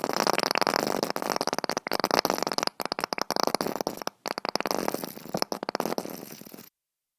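Long, sputtering fart sound effect: a rapid, rasping flutter that breaks off twice briefly and cuts off suddenly near the end.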